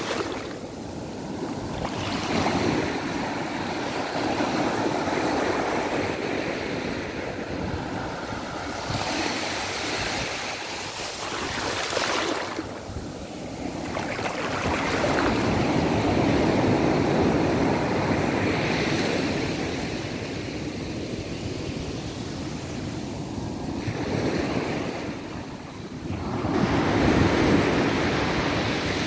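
Small sea waves breaking and washing up a sand beach at the water's edge, the foamy surf hissing and swelling and fading as each wave runs in and draws back.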